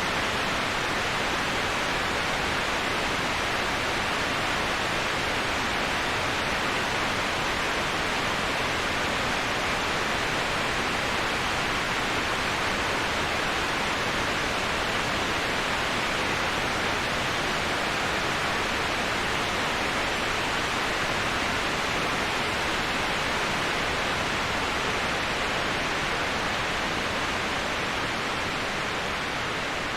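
Waterfall rushing steadily: an even, unbroken hiss of falling water, easing slightly near the end.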